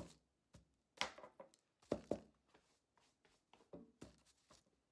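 A half-carved wooden spoon being turned over and brushed off by hand on a tabletop: a scatter of soft knocks and rustles, irregular, several a second at times.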